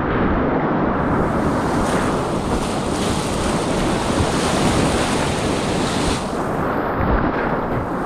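Class IV whitewater rapids rushing around a kayak, heard close from the boat: a dense, steady rush of churning water, its hiss brighter from about a second in until about six seconds in.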